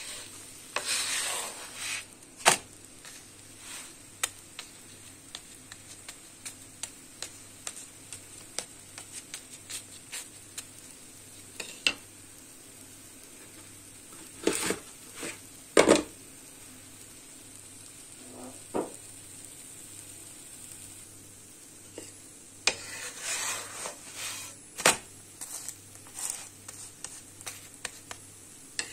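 Butter-brushed katmer flatbread frying in a pan, a steady faint sizzle dotted with many small crackles. A few louder knocks and scrapes from the pan come about a second in, twice around the middle, and in a cluster near the end.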